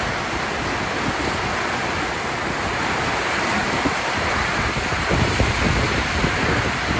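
Heavy rain pouring down in a storm, a steady hiss, with wind gusting over the microphone as an uneven low rumble.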